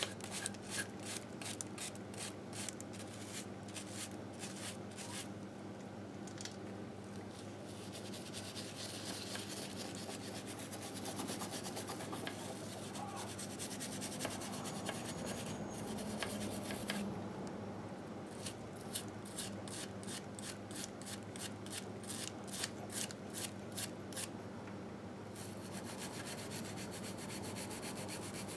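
Hand scrubbing grime off the aluminium crankcase of a 1958 Harley-Davidson Sportster engine, with quick back-and-forth strokes at about four a second. They come in runs, with a steadier stretch of rubbing in the middle.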